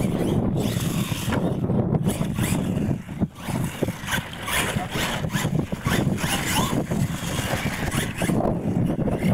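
Radio-controlled monster truck driving over dirt in uneven bursts of throttle, its motor and tyres scrabbling in surges that come and go every fraction of a second over a steady low rumble.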